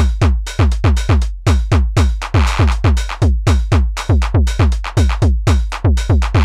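Modular-synth drum pattern: SSF Entity analog bass drum hits, each with a falling pitch, several a second in an uneven, syncopated rhythm, with 909-sample hi-hats and claps over them. The triggers come from an Acid Rain Constellation Euclidean sequencer whose event count on one channel is being swept by a fader voltage, so the rhythm shifts its syncopation.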